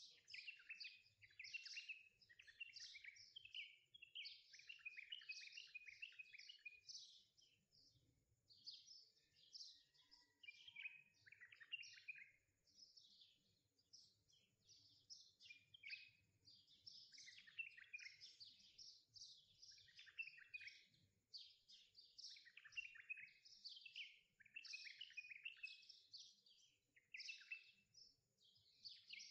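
Faint chatter of small birds: many short chirps and twitters overlapping, with brief lulls.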